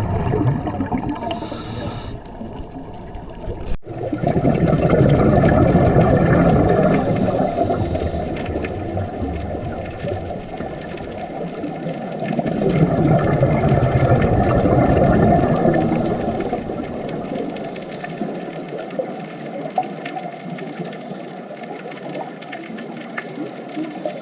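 Muffled underwater rushing and bubbling noise that swells and fades slowly twice, with an abrupt cut about four seconds in.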